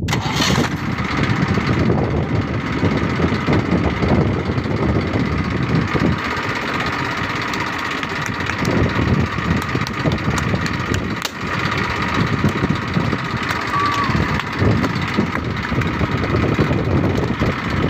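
Massey Ferguson 1035 tractor's three-cylinder diesel engine starting up suddenly at the very beginning, then running steadily while its vertical exhaust pipe blows up a balloon tied over the outlet.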